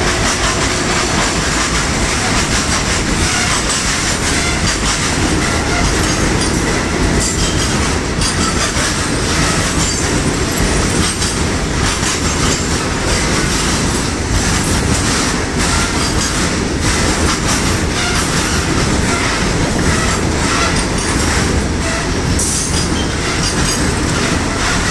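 Goods train of tank wagons rolling past close by: steady rumble of steel wheels on rail with rapid clickety-clack over the rail joints and brief high squeals from the wheels now and then.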